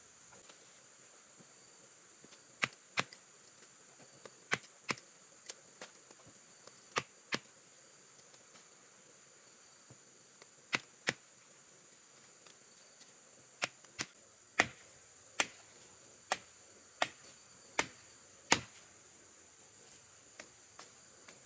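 Blade strokes chopping into the bark of a bendo (terap) tree to draw its latex: about fifteen sharp, short chops at irregular intervals, often in quick pairs, louder in the second half. A faint steady high insect drone runs underneath.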